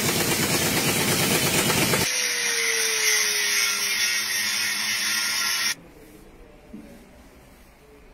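An impact wrench hammering rapidly on a car wheel's lug nuts, then an angle grinder running with a loud hiss and a whine that sinks slightly in pitch, cutting off abruptly about two-thirds of the way through.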